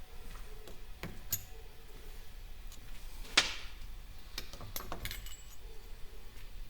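Light metallic clinks and taps of small parts being handled as a KamAZ truck air dryer is taken apart. Several scattered clicks, with one sharp, louder knock about three and a half seconds in.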